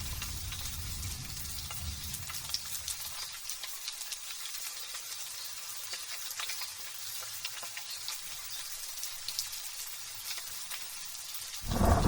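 Light drizzle falling, a steady fine hiss made of many tiny drop ticks. A low rumble of thunder dies away over the first few seconds, and near the end a loud clap of thunder breaks in suddenly.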